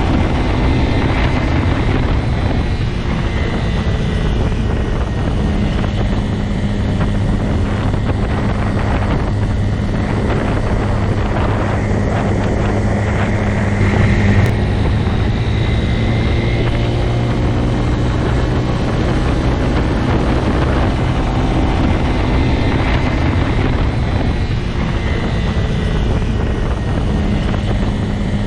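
Motorcycle engine running steadily, a low, even drone holding much the same pitch, with a brief louder moment about halfway through.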